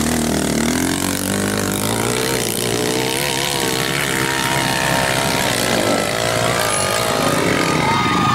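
Dirt bike engine revving hard under load as it climbs a steep hill, its pitch rising and falling with the throttle.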